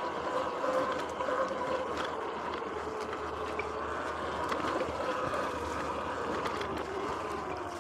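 Sur-Ron X electric dirt bike riding on a dirt singletrack: a faint motor whine that rises and falls a little with speed over a steady rushing noise, with a few scattered clicks and rattles.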